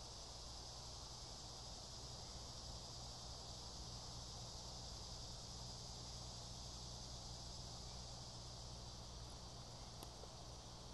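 Faint, steady high chorus of insects in woodland, an even shrill drone, over a low steady hum.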